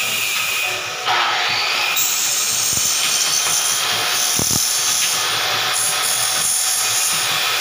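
A power tool running steadily, stepping up in loudness about a second in and holding there.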